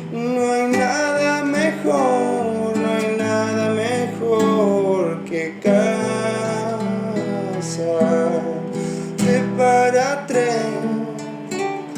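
Acoustic guitar strummed in a slow ballad accompaniment, with a voice carrying a gliding melody over it without clear words.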